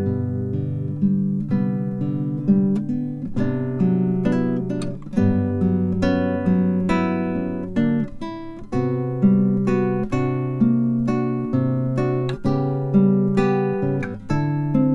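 Acoustic guitar music, plucked and strummed notes that die away one after another at a steady pace.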